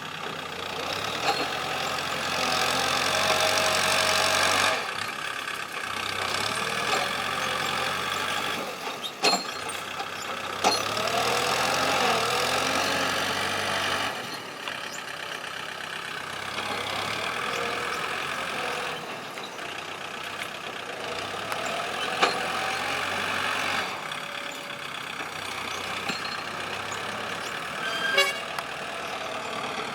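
Kobelco SK200-8 excavator's diesel engine and hydraulics working, the load rising and easing in cycles with some whining pitch glides and a few sharp knocks.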